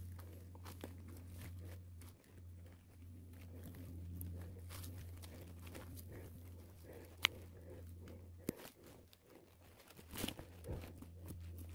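Faint crunching and scraping of forest soil and dry leaves, dug away by hand around a wild ginseng root, with a couple of sharp ticks partway through and a short run of louder scrapes near the end, over a low steady hum.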